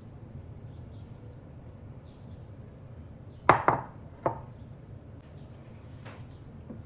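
Glass dishware clinking as filling is scraped from a mixing bowl into a glass baking dish: two quick sharp clinks and a third just after, each ringing briefly, over a low steady hum.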